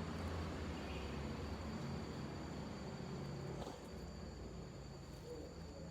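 Steady high-pitched chirring of insects, likely crickets, over a low background hum, with a couple of faint clicks.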